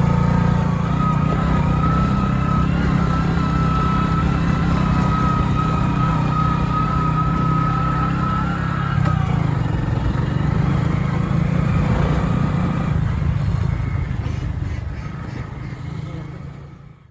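Motorcycle engine running steadily with a constant low hum and a thin high whine, fading out over the last few seconds.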